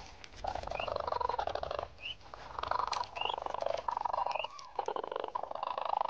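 Red-crowned cranes calling: a run of rattling, trilled calls, each about a second long, with a short high rising chirp about once every second or so.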